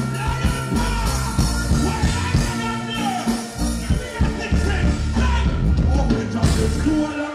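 Live reggae music over a concert sound system: a heavy bass line and drums, with a male vocalist on the microphone. The bass drops out near the end.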